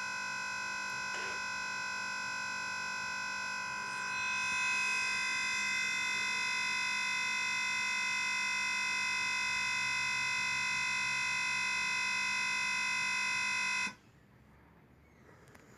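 Laptop speakers stuck on one looping fragment of sound during a blue-screen crash, heard as a steady electronic buzz of many fixed tones. It grows slightly louder about 4 s in and cuts off abruptly about 14 s in.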